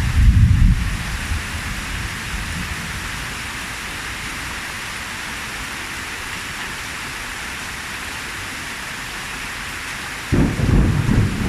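Steady rain falling, an even hiss throughout, with a burst of low rumbling in the first second and another near the end.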